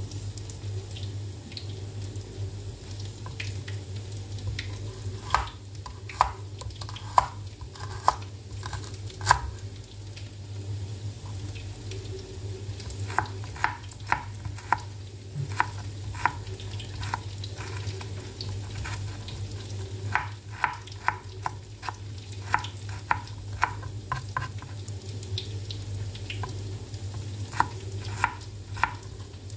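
Kitchen knife slicing leaves on a cutting board: sharp taps in irregular runs of several quick strokes, with short pauses between runs. Behind them, tempe frying in hot oil gives a steady sizzle.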